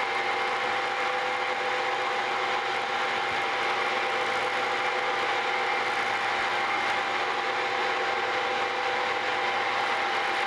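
Vertical milling machine running an end mill through a slow finishing pass along the edge of a metal plate: a steady machine hum with several held tones under an even cutting noise.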